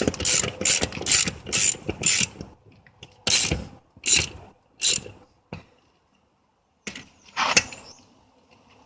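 Hand ratchet wrench clicking in quick strokes, about three a second, then slowing to a few single strokes with pauses between them.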